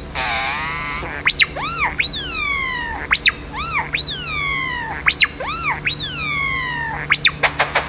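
European starling mimicking R2-D2-style droid beeps and whistles. It gives one sliding note, then the same phrase of sharp rising-and-falling whistles three times about a second apart, and ends with a quick run of clicks.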